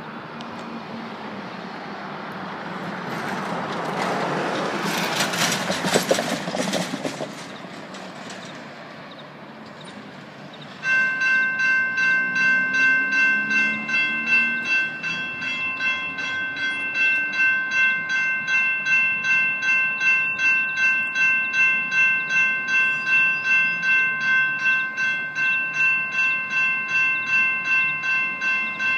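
A swell of rushing noise, then about eleven seconds in the crossing's GS Type 2 electronic bells start suddenly and ring steadily, about two strikes a second. This is the crossing activating for an approaching train.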